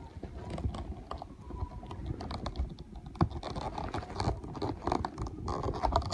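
A hard-to-open package being worked open by hand: a run of irregular clicks, scrapes and rustles.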